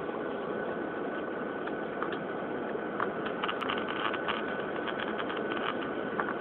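Steady roar of a jet airliner's engine and rushing air heard inside the passenger cabin, with a faint high steady tone over it. From about three seconds in, scattered light ticks and rattles sound on top.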